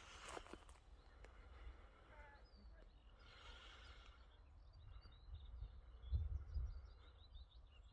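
Quiet rural ambience: low wind rumble on the microphone that gusts about six seconds in, with faint bird chirps in the second half. A couple of footsteps at the very start.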